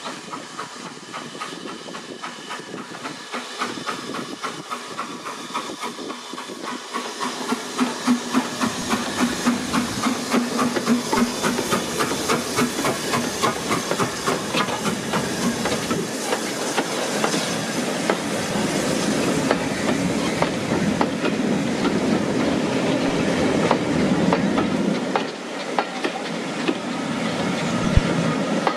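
Steam locomotive hauling a passenger train past, with steam hissing. Then a quick, regular clickety-clack of the wheels over the rail joints, growing louder as the locomotive and its carriages roll by.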